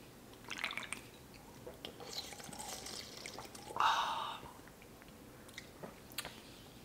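Quiet sipping and swallowing from drink cans, with small faint liquid and mouth sounds. About four seconds in there is a louder, short breathy sound.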